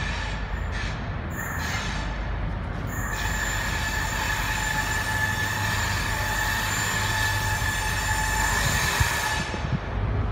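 InterCity 125 (HST) diesel train rolling slowly into the station over a low rumble. Its wheels squeal in a steady high-pitched squeal as it rounds the curved platform track. The squeal sets in about two seconds in and dies away shortly before the end.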